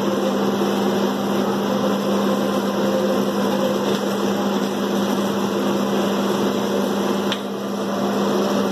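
Chicken frying in oil in an aluminium pot on a gas stove: a steady hiss under a constant machine-like hum, with a small click about seven seconds in.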